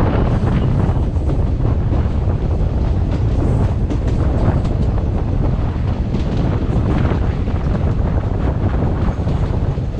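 Wind buffeting the microphone over a steady, loud low rumble, like a vehicle in motion.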